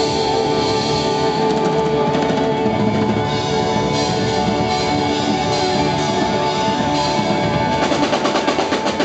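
Live rock band playing loudly: held chords ring over the drum kit, and near the end the drums break into a run of rapid hits.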